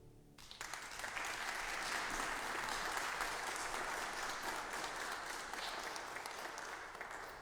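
Congregation applauding, breaking out about half a second in as the final held notes of the music stop and going on steadily, easing off a little near the end.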